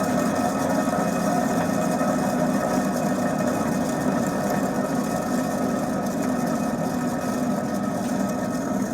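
Wheel hub of a VAZ-2107 Zhiguli spinning on its tapered roller bearings, giving a steady hum that eases slightly toward the end. The hum is the sign of bearings whose grease has dried out or been washed out by water, leaving them worn with play.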